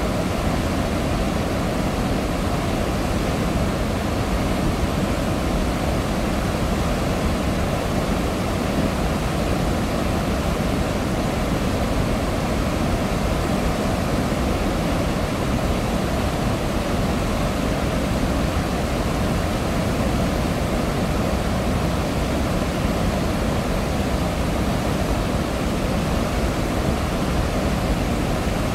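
Floodwater pouring through Paldang Dam's open spillway gates and churning below them, a steady, loud roar of rushing water. The gates have been opened to lower the reservoir after heavy rain.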